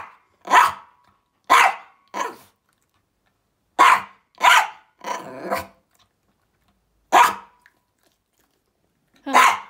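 Toy poodle barking: about eight short, sharp barks at irregular intervals, with a pause of about two seconds before a last bark near the end.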